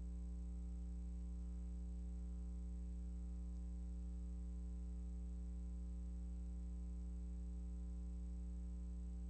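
Steady low electrical mains hum with a thin high whine above it, unchanging throughout, and no other sound.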